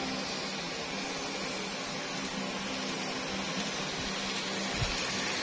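An N-scale model train running on its track: a steady whirring hum of its small electric motor and wheels, with one short knock near the end as it rolls past.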